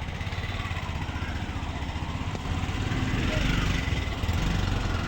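Motor vehicle travelling along a road: steady engine and road rumble with a wash of traffic noise, growing a little louder about halfway through.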